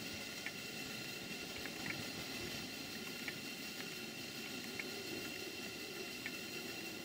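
Live-steam model steam engines running off a gas-fired boiler: a steady soft hiss and bubbling of steam, with faint, irregular light ticks.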